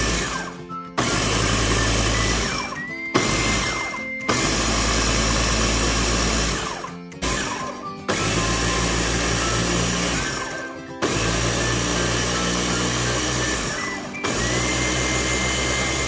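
Countertop blender grinding roasted peanuts, corn flour and sugar into a dry peanut meal (paçoca), its motor switched on and off in runs of two to three seconds with short breaks between.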